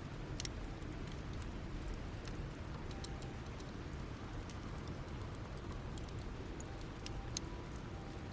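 Campfire burning down to embers, with a steady low hiss and scattered small crackles and pops from the wood.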